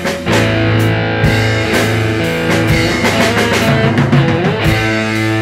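Improvised garage rock: electric guitar holding ringing chords and notes over a steady run of drum hits.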